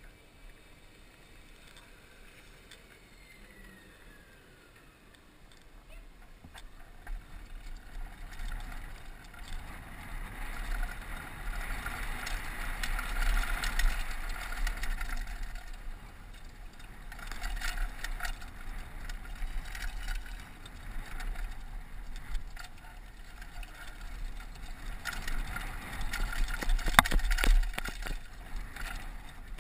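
Downhill mountain bike ridden on a dry dirt and stone trail: tyres rolling and crunching over loose ground, with the bike's chain and frame rattling over bumps and wind buffeting a helmet-mounted microphone. Quiet for the first few seconds, it grows louder as speed picks up and surges in waves, with sharp knocks near the end.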